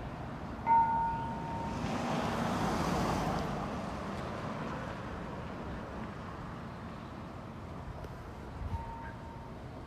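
Street traffic: a vehicle passes, its noise rising and fading over about two seconds, after a short high beep about a second in.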